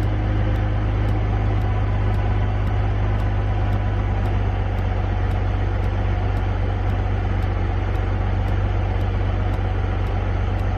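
BMW E46 330i's straight-six engine idling steadily, warming up on a freshly installed radiator filled with water rather than coolant, with no leaks so far.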